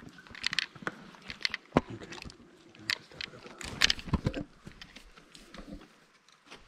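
Footsteps crunching and scraping over loose rock: a burst of irregular crunches and clicks that eases off about four and a half seconds in.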